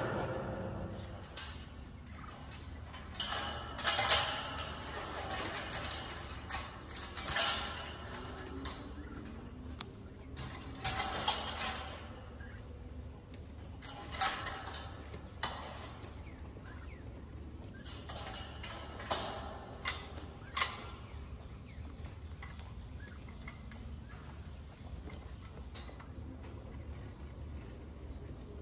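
Steel-framed welded-wire panels of a Producer's Pride chicken coop clanking and rattling every second or two as they are lifted and moved; the knocks stop about two-thirds of the way through. A steady high-pitched hum runs underneath.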